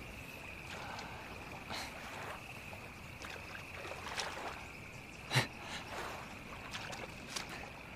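Water splashing and lapping against a small rowboat, in a few soft bursts, with one sharp knock about halfway through, over a steady high insect buzz.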